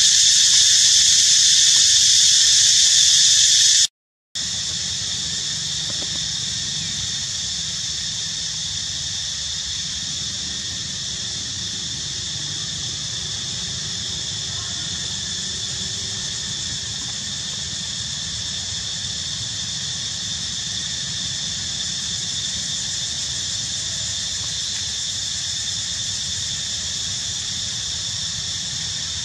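Steady, high-pitched insect chorus droning without a break in layered tones. It cuts out briefly about four seconds in and comes back a little quieter.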